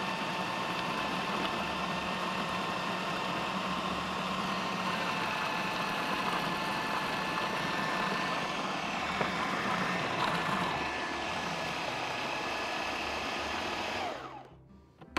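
Electric food processor motor running steadily with a high whine as it purées pesto while olive oil is drizzled in. The motor is switched off about fourteen seconds in and winds down with a falling whir.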